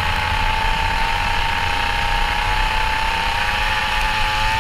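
Kart engine running at steady high revs, its pitch sagging slightly through a long corner, then starting to climb near the end as the kart accelerates out.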